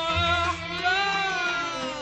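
A woman's voice singing one long held note in Arabic classical style, wavering and then sliding slowly downward from about a second in, over the orchestra's sustained low bass.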